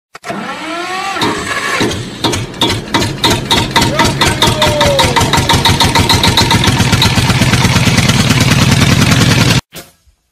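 Car engine being cranked by its starter: a pulsing that speeds up and grows louder, cut off suddenly near the end.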